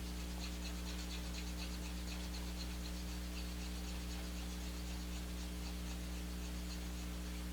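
Steady low electrical hum with faint, quick, light ticking clicks over it.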